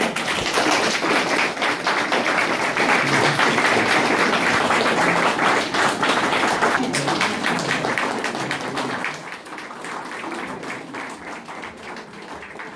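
Audience applauding: dense clapping that starts at once, holds steady and dies away over the last few seconds.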